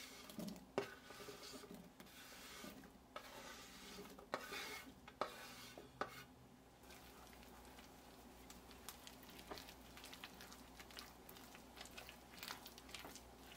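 Faint hand-stirring of thick muffin batter in a mixing bowl: soft scraping and squelching, with a few light knocks of the utensil against the bowl.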